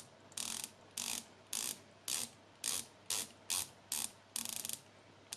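Circula Aquasport diver's 120-click bezel being turned in short strokes, each a quick run of firm clicks, about two strokes a second, with one longer run near the end.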